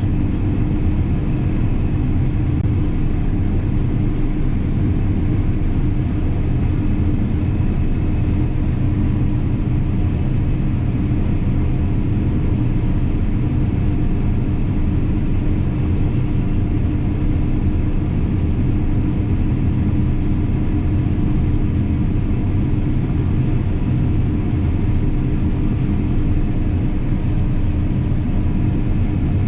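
Combine harvester running steadily while cutting soybeans: a constant mechanical drone with a steady hum that does not change.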